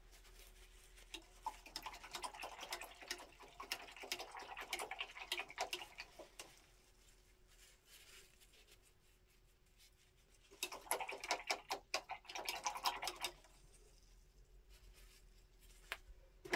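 Paintbrush scrubbing acrylic paint onto paper in quick, scratchy strokes. There are two spells of brushing, the first lasting about five seconds and the second starting about ten seconds in.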